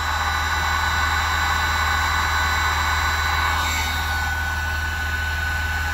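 Electric heat gun running steadily, its fan blowing hot air onto a waterproof heat-shrink butt connector to shrink it over a wire splice: an even rush of air with a thin steady whine, over a steady low hum.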